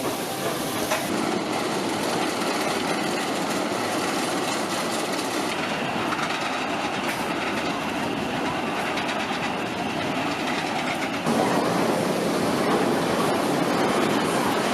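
Roller coaster trains climbing chain lift hills, a steady mechanical rattling and clacking. The sound changes abruptly about a second in and again about eleven seconds in, a little louder after the second change.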